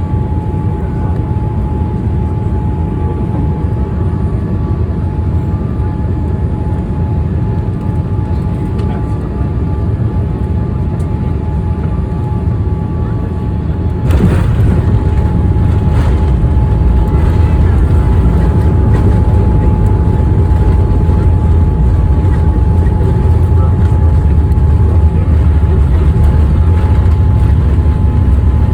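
Boeing 787 Dreamliner cabin noise during the landing: a steady deep rumble with a faint constant tone. About halfway through a sudden knock, after which the rumble is louder and stays louder.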